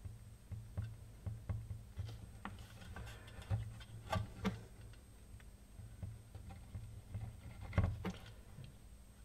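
Irregular light clicks and taps of small tools and parts being handled on a workbench during soldering work, over a low steady hum.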